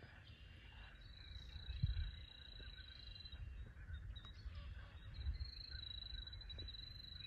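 Outdoor natural ambience: a high, thin, steady trill runs for a couple of seconds, stops, and comes back about five seconds in, over low wind rumbling on the microphone that gusts loudest about two seconds in.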